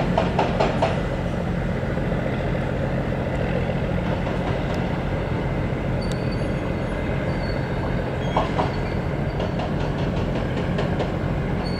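Boat engine running steadily, an even low drone.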